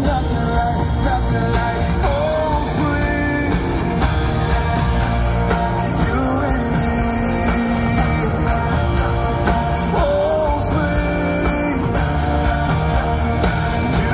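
Live country-pop band playing with a male lead vocal: electric bass, guitars and drums under held, sung notes. It is loud and recorded from the audience in an arena.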